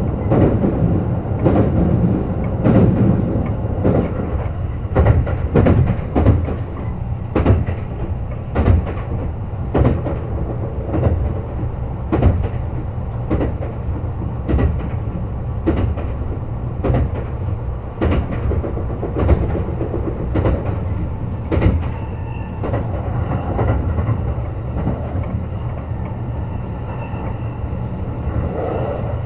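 Running sound of a Kintetsu 21000-series Urban Liner Plus electric express train at speed: a steady low rumble with sharp clickety-clack of the wheels passing over rail joints, about once a second at an uneven spacing. Faint steady tones join in about two-thirds of the way through.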